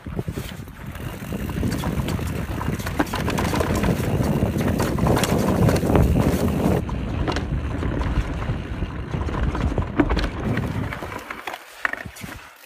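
Canyon Spectral enduro mountain bike descending a dirt forest trail at speed: wind buffeting the microphone and knobby tyres rumbling over the ground, with many short rattles and knocks from the bike over bumps. It eases off about eleven seconds in.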